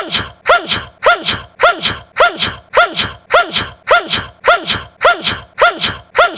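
A young man's short, high-pitched sneeze, looped back to back about twice a second. Each one is a falling vocal cry followed by a hissing burst.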